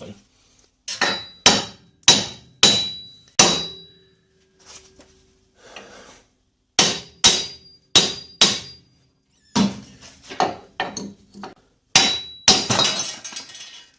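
Hammer blows on a seized front wheel bearing and hub carrier, driving it out of its knuckle as it starts to move. The sharp strikes each ring briefly and come in runs of four or five, with lighter taps between the runs and a quick rattle of small hits near the end.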